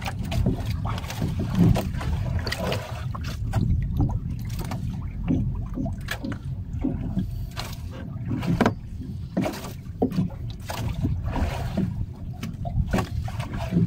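Water slapping and knocking irregularly against the hull of a small fishing boat as it rocks, over a steady low rumble.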